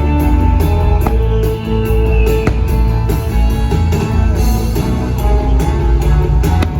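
Loud fireworks-show soundtrack music with guitar and drums, with a few sharp cracks from fireworks bursting over it, the clearest about a second and two and a half seconds in.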